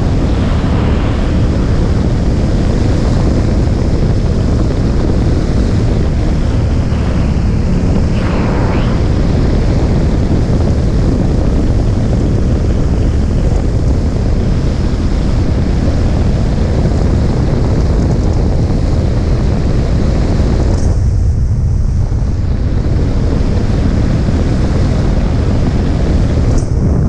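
Loud, steady wind rush buffeting the microphone of a camera on a Ducati motorcycle at road speed, with the motorcycle running beneath it. The rush thins briefly about three-quarters of the way through.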